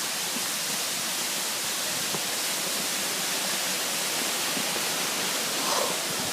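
Steady rushing hiss of fast-flowing river water, an even wash of noise with no rhythm.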